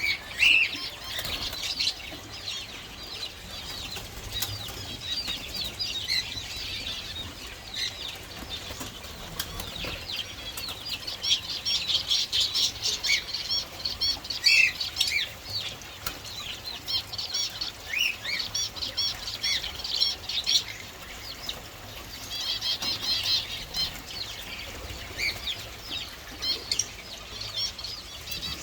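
Small birds chirping continually, in many short high notes and quick repeated note series, several calls overlapping.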